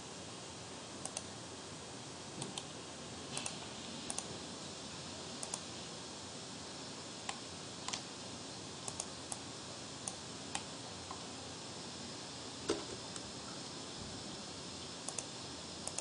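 Scattered clicks of a computer mouse, often in quick pairs, over a steady background hiss.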